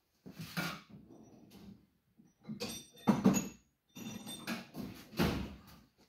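Metal hand tools clattering and knocking as a hammer and a big screwdriver are fetched, in several short bursts, with faint metallic ringing; the loudest knock is about halfway through.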